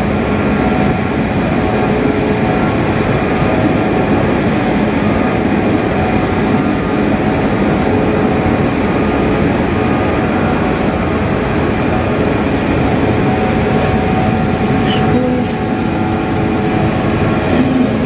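Steady running noise of a train at a station platform, a dense even rumble with a hum of several steady tones from its machinery.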